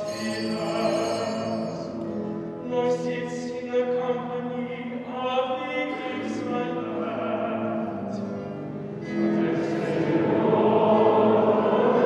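Church choir singing a slow sacred piece in long held notes, growing louder and fuller about nine seconds in.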